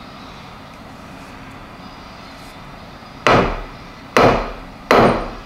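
Three hammer blows on a 3/32 in drill-rod punch, each a sharp metallic strike with a short ring, in the second half, driving at a pin in the cast-iron vise body that is stuck tight and does not budge.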